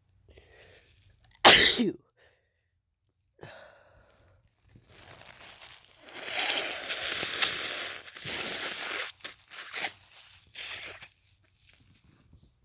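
A man's big sneeze: one sharp, very loud burst about a second and a half in, from a tickly nose that he puts down to a cold coming on. Later comes a couple of seconds of noisy breath sound and several shorter bursts.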